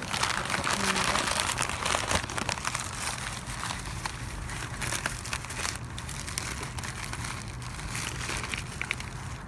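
Trash being rummaged through in a dumpster: plastic and paper crinkling and crackling, loudest in the first couple of seconds.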